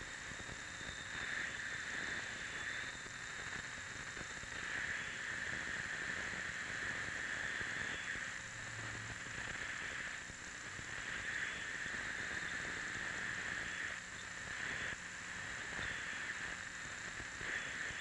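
Hissing electronic noise from the electronics kit's receiver circuit, swelling and fading in patches every second or two as the circuit is adjusted.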